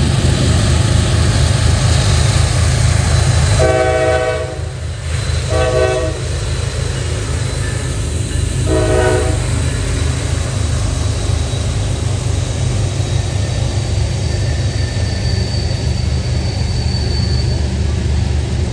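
Norfolk Southern diesel freight locomotives passing with a steady low rumble, the multi-note air horn sounding three times: one long blast about four seconds in, then two short ones near six and nine seconds. Loaded trash container cars then roll by on the rails.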